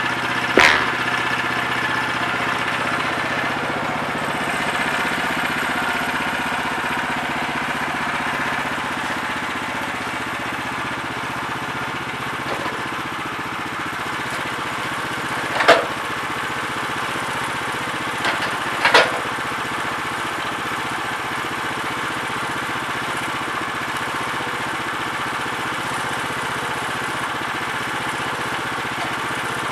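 Small gas engine of a portable bandsaw sawmill running steadily, with a few sharp knocks: one near the start and a louder pair around the middle.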